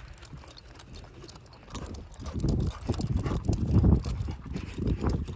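Footsteps of a person in rubber clogs walking on a concrete sidewalk, about two steps a second, getting louder about two seconds in.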